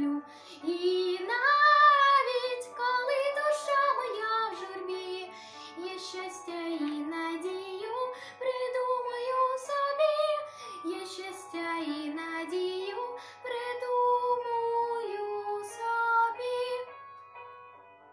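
A girl singing a song solo over a musical accompaniment, her melody gliding up and down and settling into long held notes; the singing fades out about seventeen seconds in.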